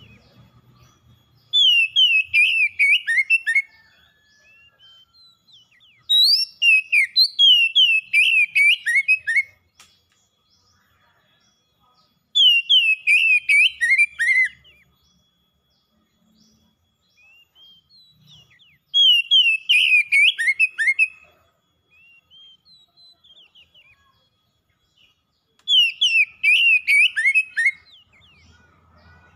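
Oriental magpie-robin singing: five phrases of quick whistled notes, each note sliding down in pitch, every five or six seconds with short pauses between.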